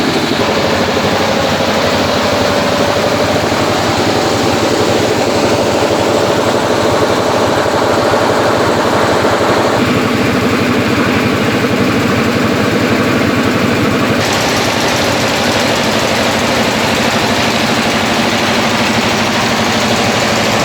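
Rice milling machine running steadily, a loud, continuous mechanical drone whose tone shifts abruptly about ten seconds in and again about fourteen seconds in.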